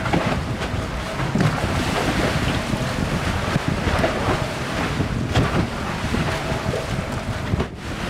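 Wind buffeting the microphone over the rush and splash of seawater along the hull of a Leopard 42 sailing catamaran under way, briefly dropping out near the end.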